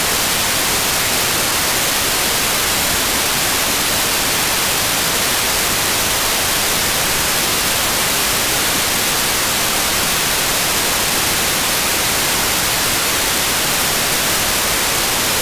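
Steady hiss of an SDR radio receiver tuned to the ISS downlink on 145.800 MHz with no signal left to hear: the station is sinking below the horizon at loss of signal.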